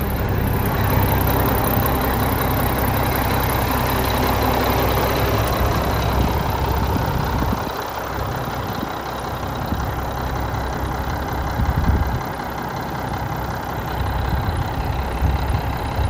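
1993 Mack RD688S dump truck's diesel engine idling steadily. Its low rumble drops a little about halfway through.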